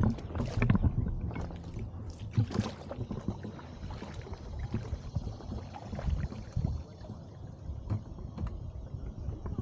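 Kayak being paddled: paddle strokes in the water with scattered knocks and clicks.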